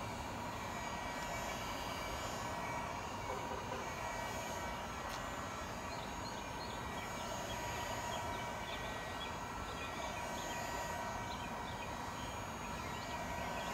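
Steady outdoor background hum with several constant high tones, and faint short high chirps scattered through the second half.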